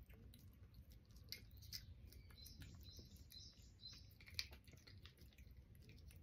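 A cat licking a paste treat off a person's fingers: quiet, quick wet smacks and clicks of its tongue and mouth, with one sharper click a little past the middle.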